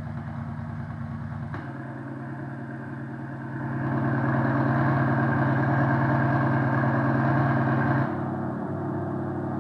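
Sound Booster electronic exhaust-sound generator playing a synthetic engine idle through its speaker. The tone switches abruptly to a different engine sound about one and a half seconds in and again near the end, and is louder in between.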